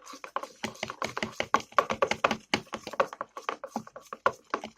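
A spoon stirring PVA glue in a container: a quick, irregular run of clicks and taps as it knocks against the sides.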